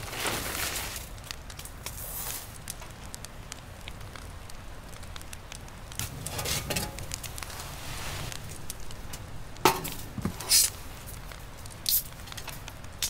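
Wood fire crackling in a small wood stove. About six seconds in, a metal pizza pan scrapes out of the stove's oven drawer. Near the end an aluminium beer can gives a sharp clack and several clicks as it is set down and its tab is handled.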